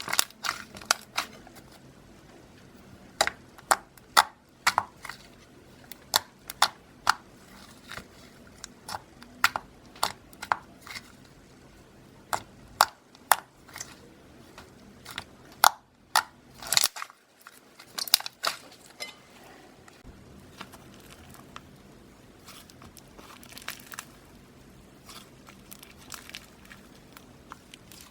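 Slime being squeezed and stretched by hand, with sharp, irregular popping and crackling clicks from air pockets. The clicks come thick for most of the stretch, then thin out and grow fainter near the end.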